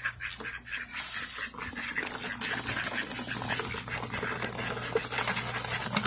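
Ducks feeding, bills pecking and dabbling at feed and mulch in a busy run of small clicks and rustles.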